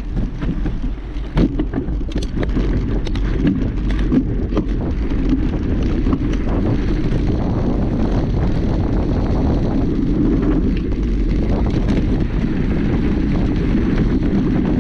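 Wind rumbling on the microphone of a mountain bike ride, with scattered clicks and knocks in the first half.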